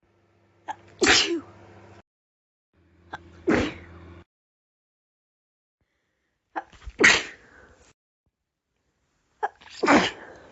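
A person sneezing four times in a row, about one every three seconds, each sneeze preceded by a short sharp intake: a sneezing fit.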